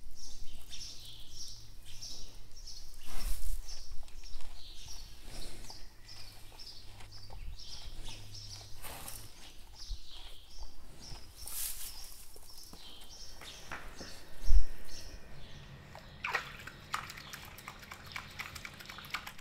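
Small birds chirping over and over, with a dull thump about three-quarters of the way through and a short spell of clattering near the end.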